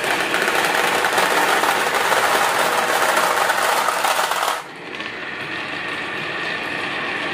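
Dozens of marbles rolling down wavy grooves in wooden tracks and clattering into the plastic beds of toy dump trucks, a dense continuous rattle. About four and a half seconds in it drops to a quieter, duller rolling of marbles along the grooves.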